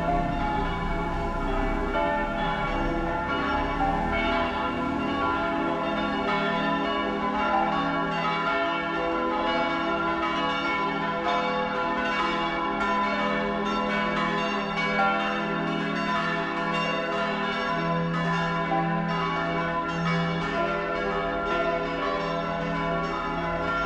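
Bells ringing in a continuous peal, many pitched strikes repeating and overlapping.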